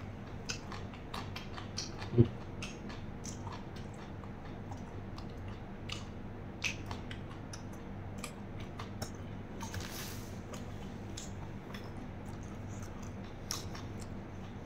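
Faint close-up mouth sounds of a man chewing a mouthful of food: soft smacks and clicks at irregular intervals. There is a brief low hum from his throat about two seconds in and a short hiss of breath about ten seconds in.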